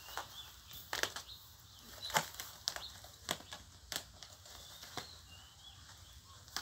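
A thin printed sheet crinkling and rustling as two cats bat and grab at it in play: an irregular string of sharp rustles, the loudest about two seconds in.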